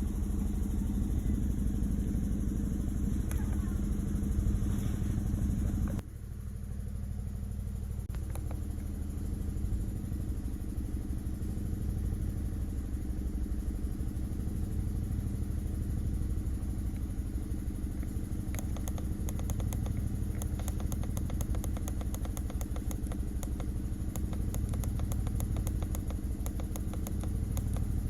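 Chevrolet Malibu engine idling while misfiring on cylinders 2 and 3 (code P0300), a steady low running sound. The level drops suddenly about six seconds in, and from about eighteen seconds a fast, light ticking joins in.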